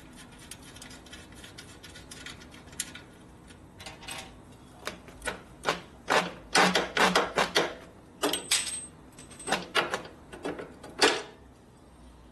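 Hand tools working on motorcycle hardware: sharp metal clicks, clinks and knocks as bolts and parts are undone, coming in dense clusters in the second half, with a brief metallic ring.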